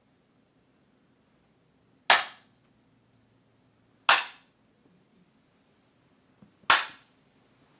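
A jukbi, the Korean Buddhist split-bamboo clapper, struck three times: sharp cracks two to two and a half seconds apart, each with a short tail of room echo. The strikes are the signal that marks the end of a period of silent seated meditation.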